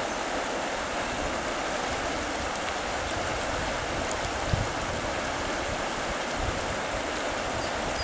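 The Arkansas River rushing steadily over rocks and cobbles in broken riffles.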